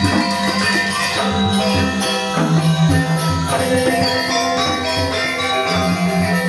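Balinese gamelan music with ringing metallophones and bells playing a dense, steady pattern, the low note shifting about two and a half seconds in and again near the end.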